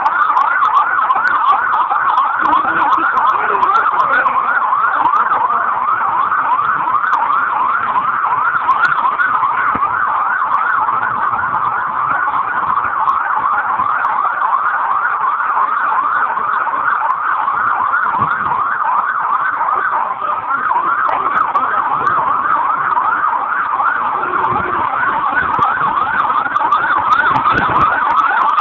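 Emergency vehicle siren in a fast yelp, its pitch sweeping rapidly up and down, about four or five times a second, without a break.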